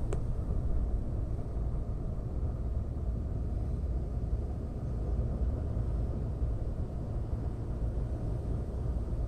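Steady low rumbling background noise, with one short sharp click right at the start.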